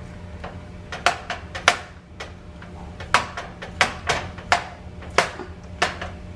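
A sharp knife stabbing all the way through thick pork ribs and tapping the metal baking sheet beneath. About ten sharp clicks come at an uneven pace, starting about a second in.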